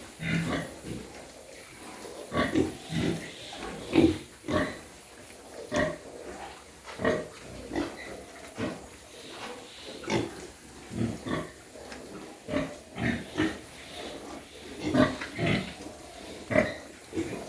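Pigs grunting, a run of short, irregular grunts about one or two a second.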